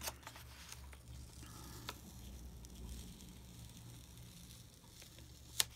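Faint soft crackle of a paper sticker being slowly peeled off tissue paper, with a few small ticks, the sharpest just before the end.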